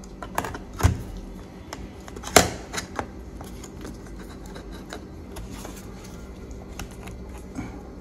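A few sharp clicks and knocks as a laptop hard drive is put back into the bay of an opened MacBook Pro's case, the loudest knock about two and a half seconds in, then only small ticks.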